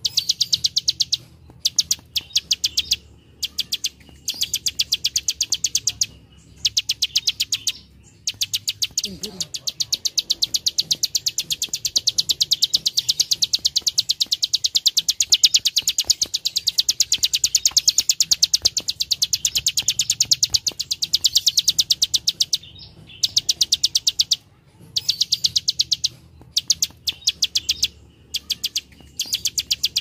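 Plain prinia (prenjak sawah) giving its rapid 'klik-klik' clicking song: runs of quick, dry, high-pitched clicks separated by brief pauses, with one long unbroken run through the middle.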